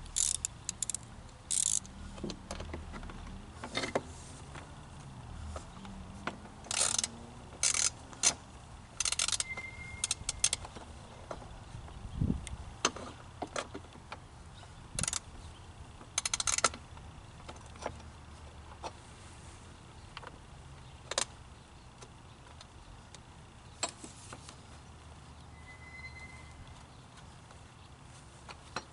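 Hand tools and metal parts being worked during lawn mower assembly: irregular clicks and clatter with a few short rasping strokes while a screw is being started.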